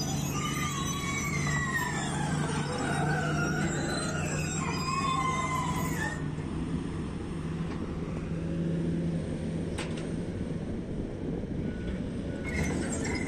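Komatsu PC200 amphibious excavator climbing onto a lowboy trailer's ramps: its diesel engine runs steadily under load while the steel pontoon tracks give wavering high squeals for about the first six seconds, then stop.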